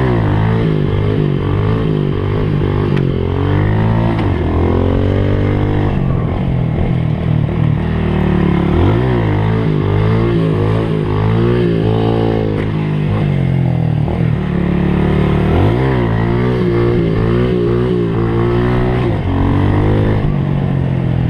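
Honda Pop small motorcycle's single-cylinder engine being ridden hard on a dirt trail. Its pitch rises and falls every second or two as the throttle is opened and closed, with drops where it shifts gear.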